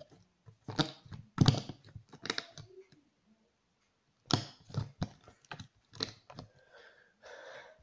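Slime being squeezed, pulled and pressed into a plastic tub by hand, making short sticky clicks and crackles in several bursts, with a softer rustle near the end.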